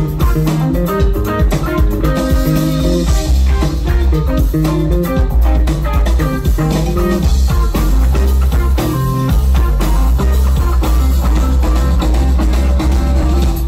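Live rock band playing loud and steady: electric guitar lines over bass guitar and drum kit.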